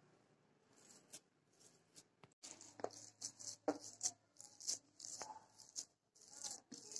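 Faint, irregular soft taps and brief scrapes of a hand kneading crumbled fresh chhena against a steel plate, working the curd until it is smooth and soft; the sounds begin about two and a half seconds in.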